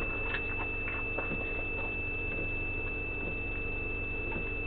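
A steady high-pitched electronic whine over a low hum, with a few faint clicks.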